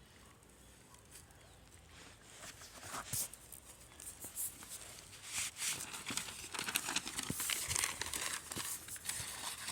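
Dry paper and twigs of a small, struggling campfire crackling and crinkling: scattered sharp clicks, quiet at first and growing busier after about two and a half seconds.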